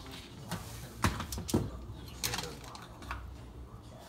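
Aluminium foil crinkling under hands, with a string of light clicks and taps. The sharpest come about a second and a second and a half in.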